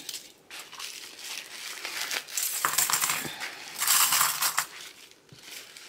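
Metal flex purse-frame springs clinking against each other as they are handled, in scattered light clicks, with plastic packaging crinkling now and then.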